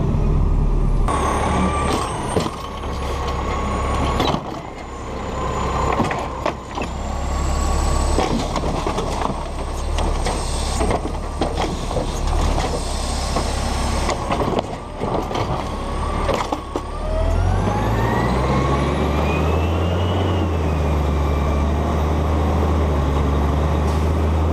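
Automated side-loader garbage truck running, its diesel rumbling under a steady hydraulic whine, with many metal knocks and rattles from the arm and hopper. About two-thirds of the way through the engine revs up, its pitch rising for a few seconds and then easing back.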